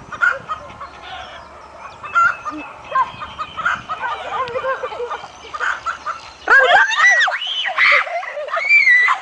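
Chickens clucking and squawking, with a run of loud, arching squawks in the last few seconds.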